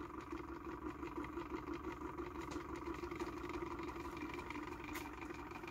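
Bedini-style pulse motor running: the spinning magnet rotor and pulsed drive coil give a steady, low whirring hum with a fine rapid flutter.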